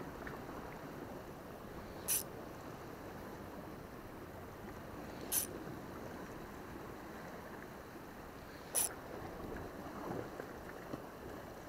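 Calm sea water lapping and washing against shore rocks, a steady soft wash, with a short, high-pitched tick about every three seconds and a small splash near the end.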